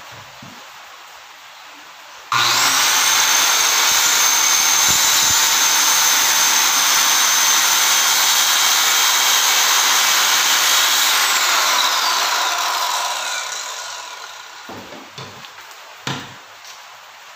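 Lotus 1500 W circular saw with a 7¼-inch 24-tooth blade starting abruptly and cutting through a piece of solid wood at a steady pitch. After about nine seconds the trigger is released and the blade spins down with a falling whine, followed by a few short knocks.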